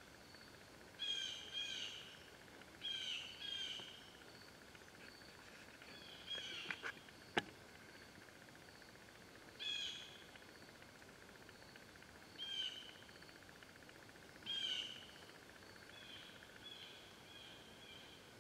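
A bird giving short, high calls, singly and in pairs, about nine times, over a faint steady buzz. A single sharp click sounds about seven seconds in.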